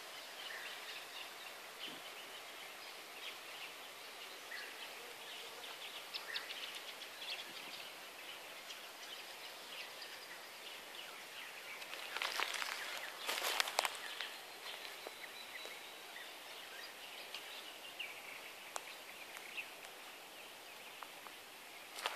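Quiet woodland ambience: scattered short bird calls over a steady hiss. About halfway through comes a louder rustle and crunch of someone pushing through dry shrubs and leaf litter.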